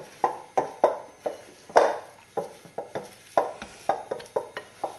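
Spatula working wet whole-grain tortilla dough in a glass mixing bowl: irregular knocks and wet squelches of the spatula against the glass, about two to three a second.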